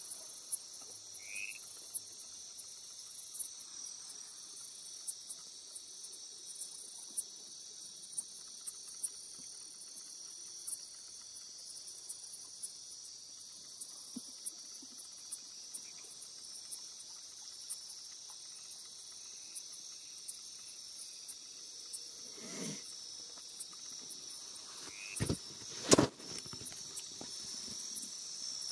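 Steady high-pitched chorus of night insects in tropical forest, with scattered faint clicks. Near the end come a few knocks; one sharp knock about three seconds before the end is the loudest sound.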